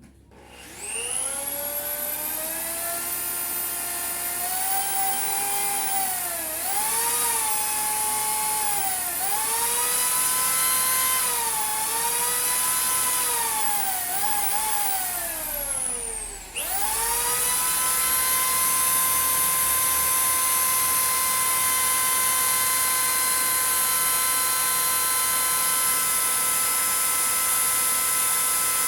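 Household electric drill boring into a piece of concrete. The motor whine spins up, sags and recovers in pitch several times as the bit bites, and about sixteen seconds in it slows almost to a stop. It then spins back up and runs at a steady high speed.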